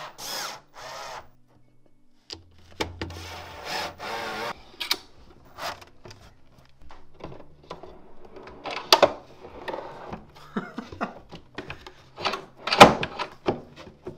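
Cordless drill-driver driving screws through a steel drawer slide into plywood in short bursts during the first few seconds. Then metal drawer slides clicking and rattling and plywood knocking as a drawer is fitted into its cabinet, with loud knocks about nine and thirteen seconds in.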